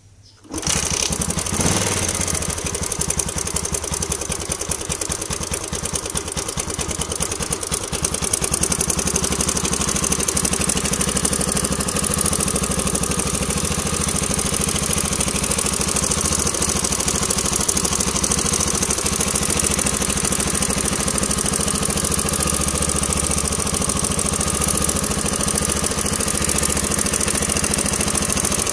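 Yamaha LC135 single-cylinder four-stroke engine idling steadily from about half a second in, running noisily. The owner takes the noise most likely for a slack timing chain.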